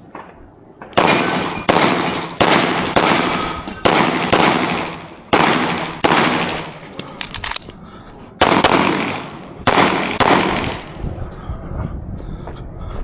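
Pistol shots fired on an IPSC stage, about eleven in all. They come mostly in pairs about half a second apart, with short pauses between the pairs, and stop after about ten seconds.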